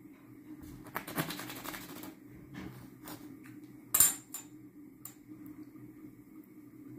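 Fluted round metal dough cutter being handled against a granite countertop: a brief scraping noise about a second in, one sharp clink about four seconds in, and a few light taps.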